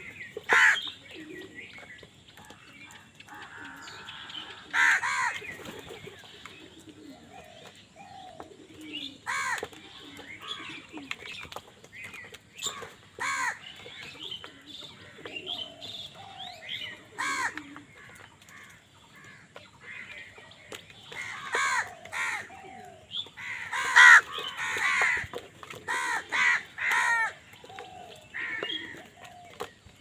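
A flock of house crows cawing: harsh calls every few seconds, with a quicker run of calls near the end.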